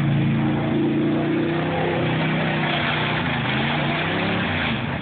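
K1500 pickup's engine revving hard while the truck drives through mud, held high and then winding down near the end.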